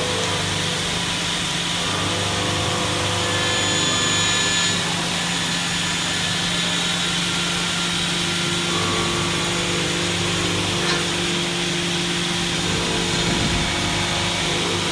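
CNC milling machine running with a steady hum and hiss; a few high, thin tones come in for a second or two early on as the cutter works.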